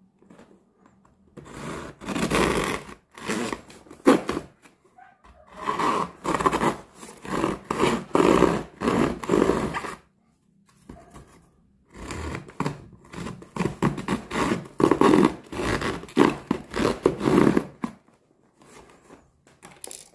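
Teeth of a ryoba Japanese pull saw rasping back and forth across packing tape and cardboard, cutting open a box's taped seam. It comes in several bursts of quick strokes with short pauses between.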